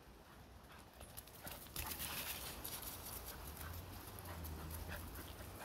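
Footsteps crunching irregularly on dry leaf litter and gravel, faint, with a low rumble underneath.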